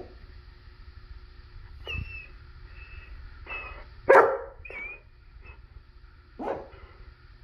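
Dog whining in thin, high-pitched whines, with one loud sharp bark just after four seconds and a shorter bark about six and a half seconds in.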